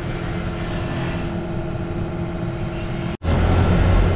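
Steady mechanical drone of workshop equipment. About three seconds in it cuts off abruptly and a louder, deeper hum takes over.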